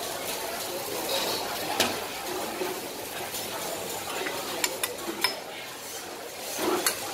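Metal spatula and ladle clinking and scraping on a hot flat-top griddle: a few sharp clicks over a steady sizzle.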